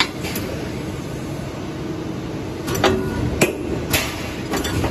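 CNC tube punching machine working a rectangular steel tube: a steady machine hum broken by several sharp metallic clacks, most of them in the second half, as the tube is clamped and punched.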